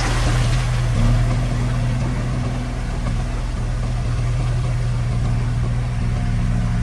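Diesel engine of a bulldozer or dump truck running steadily at an even speed, a constant low hum.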